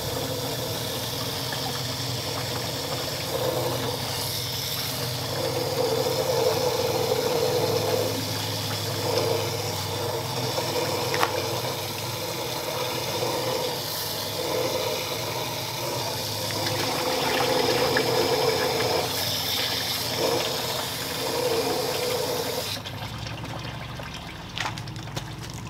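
Garden-hose water rushing through the water jacket of a 1937 Ford flathead V8 block and pouring out into a plastic bin, flushing out rust and deposits. The flow cuts off near the end.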